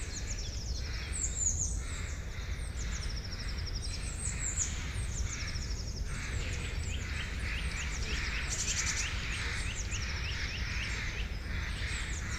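Several songbirds singing and chirping at once, with quick repeated trills and short rising chirps overlapping, over a steady low rumble.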